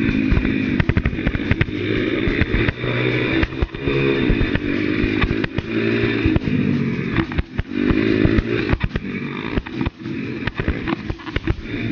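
Pit bike's small single-cylinder engine running hard, its pitch climbing and dropping repeatedly as the throttle opens and closes, with frequent knocks and rattles from the rough dirt track.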